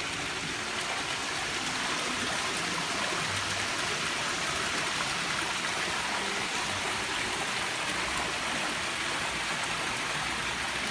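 Tiled courtyard fountain splashing steadily: water pouring from a lion-head spout and spilling in a thin sheet over a tiled ledge into a lower pool. It grows a little louder over the first couple of seconds, then holds steady.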